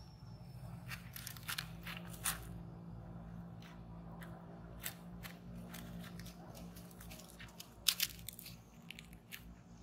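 Irregular sharp smacks and crunchy clicks from a monkey's mouth, close to the microphone, over a low steady hum.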